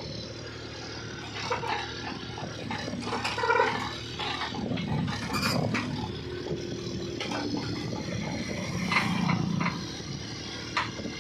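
Mini excavator engine running steadily, with scattered knocks and clanks over the hum.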